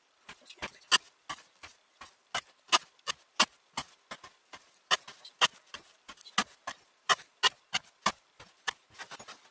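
A forged carpenter's axe blade pressed down through hemp rope into a soft cedar board, cut after cut, each cut a sharp knock, in a rapid, fairly even run.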